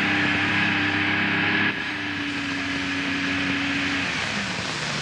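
Engines of heavy earthmoving machinery at a bauxite mine, a front-end loader and haul trucks, running steadily, with a sudden change in the sound a little under two seconds in and the pitch sagging slightly near the end.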